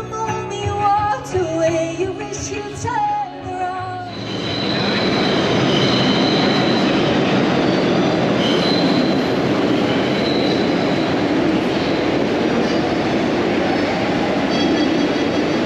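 A pop song with singing plays for about four seconds, then cuts off abruptly to a New York City subway train in the station: a loud, steady rumble with high wheel squeals coming and going.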